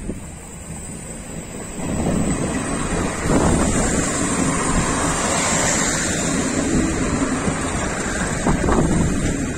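Renfe 592 series diesel multiple unit passing close by, its underfloor diesel engines and wheels on the rails running steadily. It gets louder about two seconds in as the train reaches the microphone.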